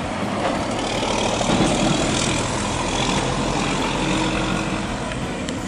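Diesel tractor-trailer engine running as the truck drives past close by, with tyre and road noise.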